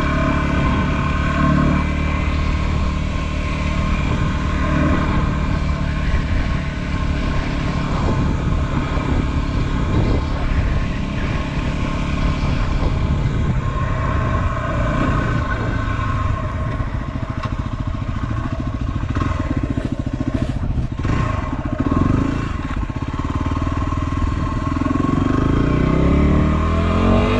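2016 Yamaha WR250R's single-cylinder engine running as the bike is ridden, steady for most of the time, with a few clatters about three-quarters through and the pitch rising near the end as it accelerates.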